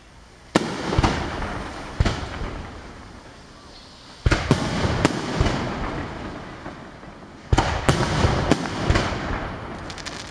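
Aerial fireworks shells bursting: sharp bangs, some alone and some in quick groups of three or four, each trailing off over a second or two. The bangs come about half a second in, at one and two seconds, in a cluster around four and a half seconds and in another from about seven and a half seconds.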